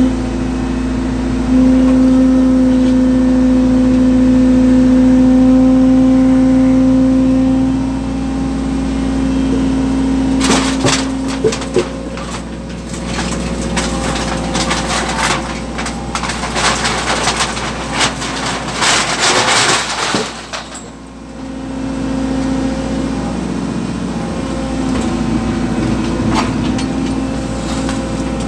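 Hydraulic excavator running with a steady hum and whine while it holds a suspended concrete culvert cover. From about ten seconds in, for roughly ten seconds, a run of clattering and knocking sounds over it, then the steady engine hum returns.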